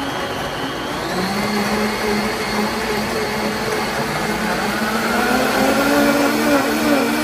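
Two high-powered blenders, a Blendtec 650S and a Vitamix A3500, running together on their smoothie programs, churning whole apples in water. The motor pitch steps up about a second in, and a second motor note rises between about four and five seconds in as the programs change speed.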